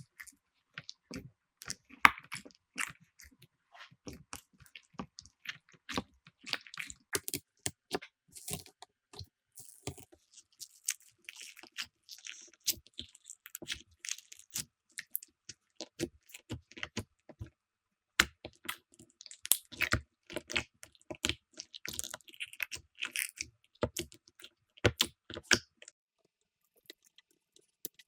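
Slime being squeezed and pressed by hand, making irregular sticky crackles and small pops. There is a brief pause about two-thirds of the way through, and the sound dies away shortly before the end.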